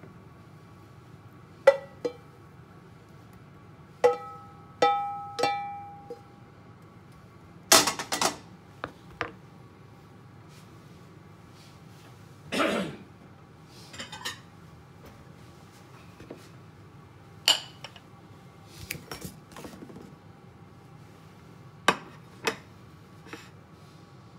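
Spatula, frying pan and ceramic bowl clinking and knocking as fried rice is scraped from the pan into the bowl and the bowl is turned out onto a plate. The sharp clinks and knocks come one at a time, a few seconds apart, and some ring briefly.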